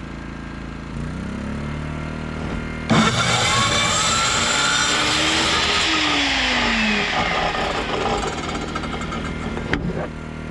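Small portable generator engine running and labouring as an air compressor starts on it. About three seconds in, a louder running noise comes in and the engine's pitch sags. The compressor draws enough to pop the generator's breaker.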